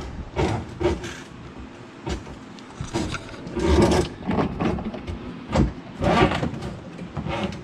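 Irregular knocks, scrapes and rustles of hands handling a dishwasher's hoses as they are pulled through the cabinet opening.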